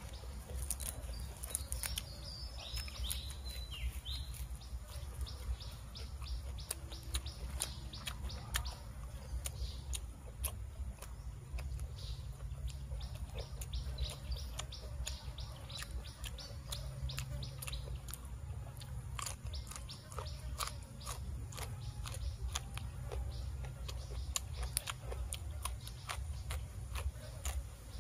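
Close-up chewing of crisp raw vegetables, including yardlong bean and fresh leaves: a steady run of crunches and mouth clicks. Birds chirp in the background, with a burst of chirps a few seconds in.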